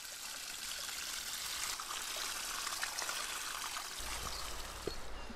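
Thin stream of spring water pouring from a pipe and splashing into a shallow pool, a steady trickle, with a couple of soft knocks near the end.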